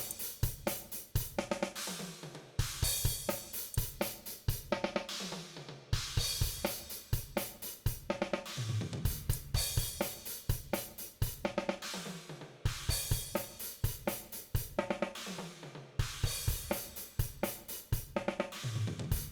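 DrumGizmo virtual drum kit playing back a beat of kick, snare and hi-hat, with a crash cymbal about every three seconds, while its room-mic track is being EQed with the highs cut back.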